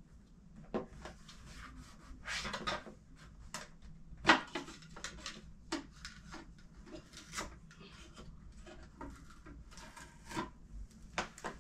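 Plastic parts of a Keurig K-Iced Essentials coffee maker being handled while packing tape is pulled off them: an uneven run of clicks and knocks, the sharpest about four seconds in, with a few short rasps of tape.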